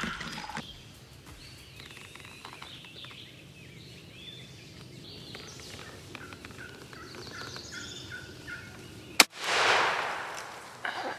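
Turkey calls and gobbling through the first part, then a single loud shotgun shot about nine seconds in, followed by about a second of rushing noise.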